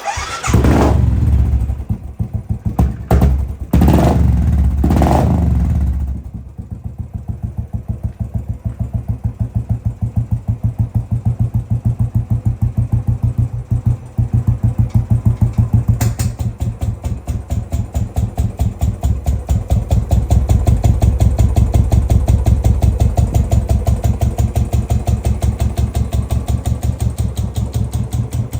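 Fuel-injected Royal Enfield Classic 500 single-cylinder engine starting from cold. It fires at once and is blipped several times in the first six seconds. It then settles into a steady idle with evenly spaced exhaust beats.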